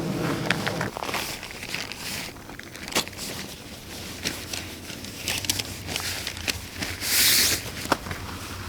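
Footsteps crunching through leaf litter and undergrowth, with scattered sharp twig cracks and crackles, and one louder brushing swish about seven seconds in.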